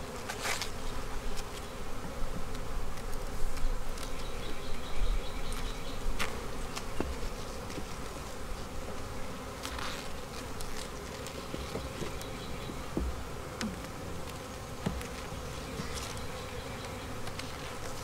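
Honeybee colony in an open hive humming steadily. A few short knocks and clicks come from the hive tool working the wooden frames.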